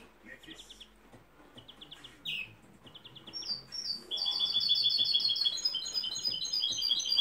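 European greenfinch singing: short bursts of rapid trilled notes, then from about four seconds in a louder, longer fast trill.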